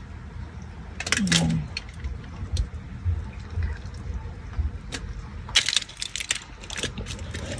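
Spoon scraping and thick, sticky ube halaya (purple yam jam) being dropped and spread into a cookie tart shell: soft wet plops with a few sharp scrapes, over a steady low rumble.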